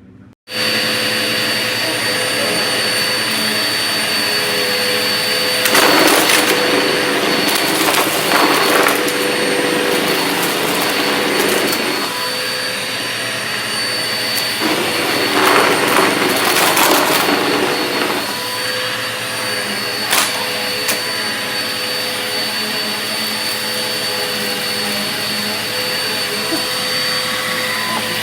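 Vacuum cleaner starting abruptly about half a second in, then running steadily with a high motor whine. It has several louder rushing surges as it sucks up debris from the floor.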